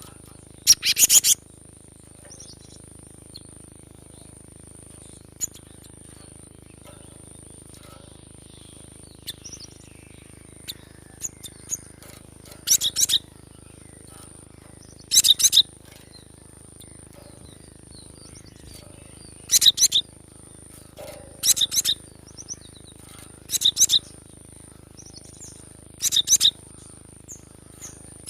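Cinereous tit (gelatik batu) calling in seven short, loud bursts of rapid high notes, each about half a second long and spaced unevenly, over a thin steady high-pitched hiss.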